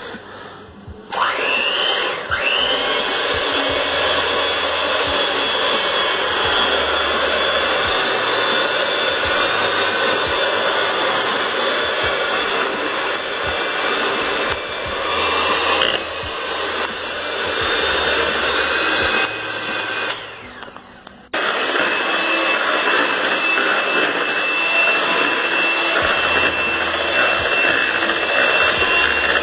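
Electric hand mixer running with a steady whine as its beaters whisk eggs in a bowl. It starts about a second in, winds down and stops briefly about two-thirds of the way through, then starts again with a higher-pitched whine.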